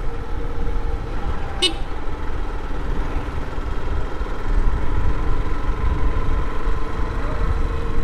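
Motorcycle riding along a street: a steady deep wind-and-engine rumble on the microphone, with a faint steady tone in the background that grows from about the middle on. A brief sharp crackle comes about one and a half seconds in.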